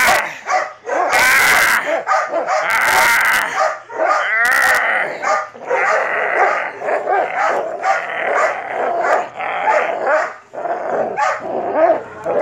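Belgian malinois barking and whining almost without pause, with a few short rustling bursts in the first five seconds.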